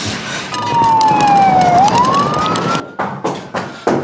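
Police car siren wailing in one slow sweep, falling in pitch and then rising again, over loud rushing road noise. Near the end a rhythmic music beat takes over.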